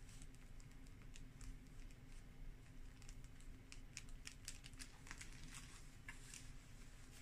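Faint rustling and light ticks of cloth and a card template being pressed with a small craft iron and handled, the ticks coming more often in the second half, over a low steady hum.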